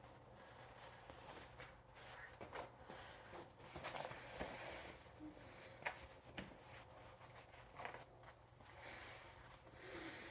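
Faint rustling of a half-buckle baby carrier's woven-wrap straps being pulled and passed around the body, with a few soft taps, a little louder about four seconds in and near the end.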